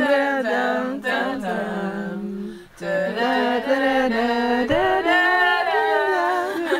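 Voices singing a tune without accompaniment, in long held notes that slide up and down, with a brief pause about two and a half seconds in.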